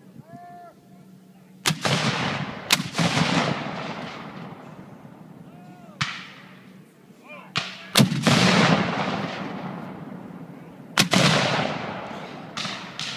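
Civil War field cannons firing blank charges one after another: about seven booming shots, four of them loud and the rest fainter and further off, each followed by a long rolling echo that dies away.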